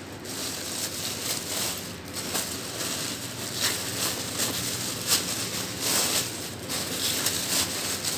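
Thin plastic carrier bag rustling and crinkling as it is handled and pulled over a plastic bowl, in a run of irregular crackles.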